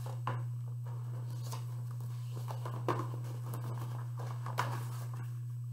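Pages of a large paper picture book being turned and handled: a few soft paper rustles and taps over a steady low hum.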